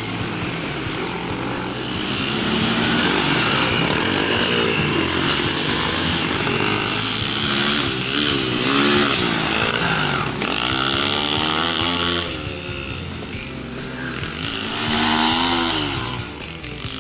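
Small dirt bike engines revving on the track, rising and falling in pitch again and again as the bikes accelerate and ease off. The sound is loudest through the middle of the clip and swells once more near the end.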